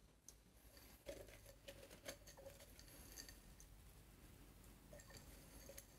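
Faint rustle and patter of grain spawn being shaken from a glass jar onto straw in a stainless steel bowl, with scattered small clicks as fingers break up the clumps.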